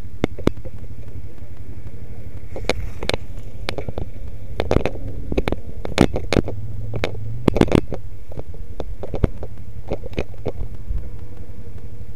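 An ATV engine running steadily at low revs, with a series of sharp knocks and rattles from the machine jolting over rough, brushy ground, most of them between about three and eight seconds in.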